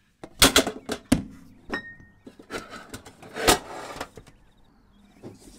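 Handling of a metal watercolour tin and paper-wrapped half pans: a run of sharp clicks and knocks, one short ringing clink, then a longer scraping, rustling stretch.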